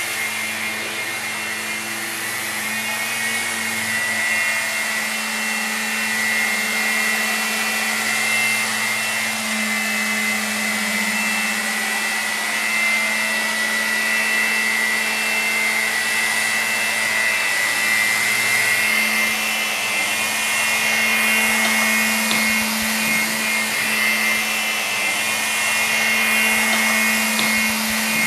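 Walkera HM 5G6-1 electric micro RC helicopter in flight: a steady high motor and rotor whine that wavers a little in pitch as it flies.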